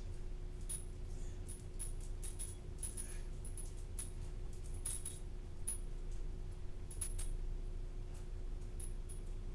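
Small dog's metal collar tags jingling as it moves about: light, irregular metallic clinks, a few clustered ones louder, over a steady low room hum.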